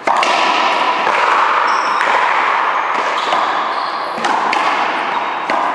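Racquetball rally: the hollow rubber ball cracking off racquets and the front wall, a sharp knock at the start and more at roughly one- to two-second intervals, over a steady rushing noise.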